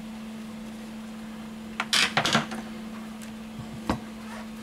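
Hard plastic back cover of a Lenovo Yoga Tab 3 tablet being put down, giving a quick cluster of plastic clacks about two seconds in and a single tap near the end, over a steady low hum.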